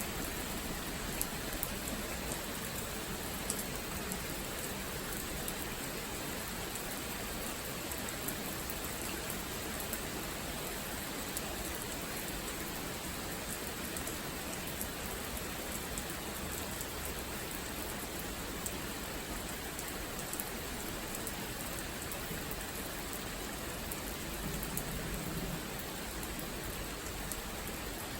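Steady rain falling, with scattered individual drops ticking close by. A brief low rumble rises under the rain near the end.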